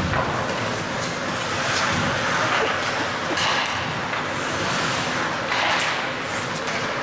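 Steady noise of a game in progress: indistinct crowd voices and play sounds, with a few short hissing surges and scattered knocks.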